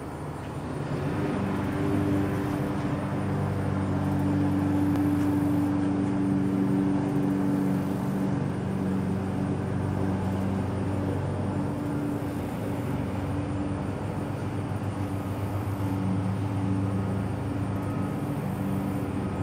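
A motor running steadily nearby: an even low hum over background noise.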